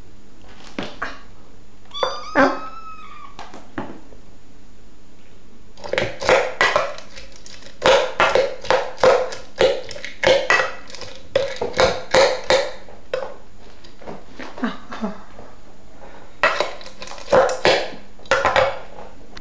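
Hungry kittens mewing to be fed: a few single mews at first, then from about six seconds in a rapid run of short, insistent mews, several a second, with another run near the end.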